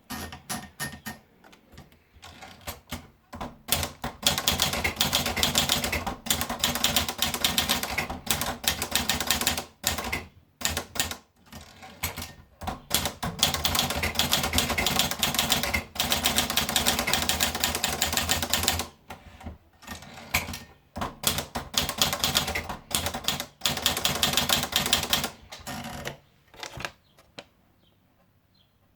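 Olivetti Lettera 25 typewriter being typed on: long, fast runs of keystrokes broken by short pauses. The typing dies away a couple of seconds before the end.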